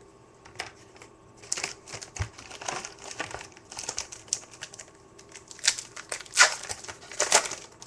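Foil wrapper of a Topps Chrome baseball card pack crinkling as it is handled and torn open, in irregular crackles that grow denser and louder in the last few seconds.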